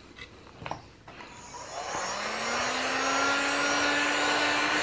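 Electric heat gun switched on about a second and a half in: its fan motor spins up with a rising hum that levels off into a steady whir of blowing air. A few light handling knocks come before it.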